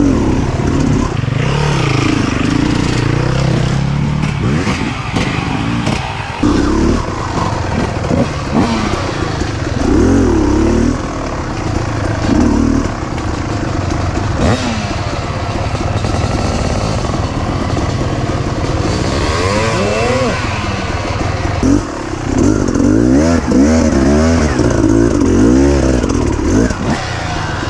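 Off-road dirt bike engine heard close up from on the bike, revving up and down over and over with the throttle as it is ridden along a rough trail.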